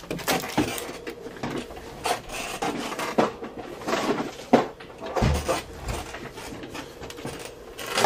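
Hands rummaging and handling objects: scattered knocks, clicks and light clatter at uneven intervals, over a faint steady hum.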